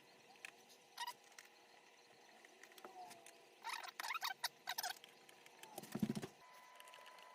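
Small squeaks, clicks and scrapes of a flat-screen TV's plastic casing being worked apart. A cluster of short squeaks comes about four seconds in, and a dull knock about six seconds in.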